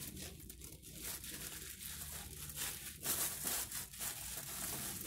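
White wrapping paper crinkling and rustling as it is opened and pulled back from around raw salmon fillets by hand, in irregular crackles that are loudest a little after three seconds in.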